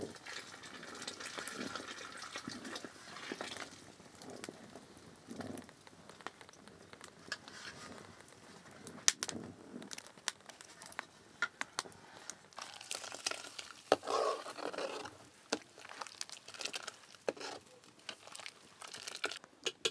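Milk being heated in an aluminium pot over a wood fire: scattered crackles and sharp clicks from the burning wood and a metal ladle knocking against the pot, with some liquid sloshing as the milk is stirred and ladled.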